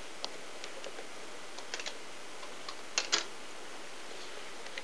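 A few scattered light clicks and taps over a steady hiss, the two loudest close together about three seconds in.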